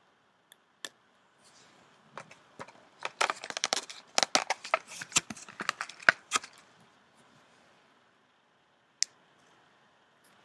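A dense run of small sharp clicks and scratchy scraping as a domed metal mesh screen is worked into a glass vaporizer stem, busiest from about three to six and a half seconds in, with a few single clicks around it.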